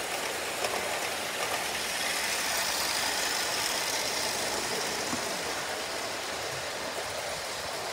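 O gauge model trains running round the track, a steady rolling noise with no distinct knocks or changes.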